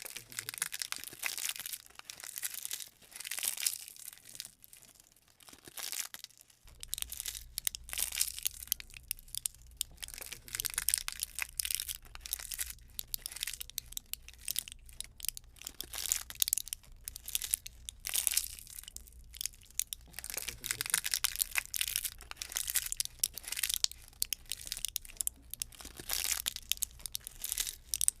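Campfire burning, wood crackling and popping in quick irregular snaps. A steady low rumble starts about six and a half seconds in.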